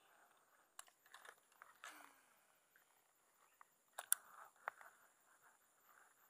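Faint handling sounds of a fishing rod and reel: scattered clicks and rustles, with a sharper cluster of clicks about four seconds in. A steady faint high-pitched tone runs underneath.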